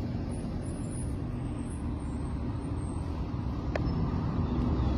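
Steady low rumble of background noise, with one faint click nearly four seconds in.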